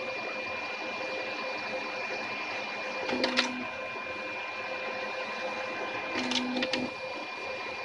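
HP LaserJet CP1025 colour laser printer running: a steady mechanical whir with fixed tones, broken about every three seconds by a short low hum and a few sharp clicks.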